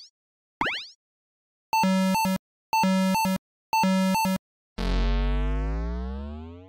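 Electronic synthesizer sound effects: a short blip falling in pitch, then three identical buzzy held tones, each ending in a quick stutter, then a long sweep falling in pitch like a power-down, fading out near the end.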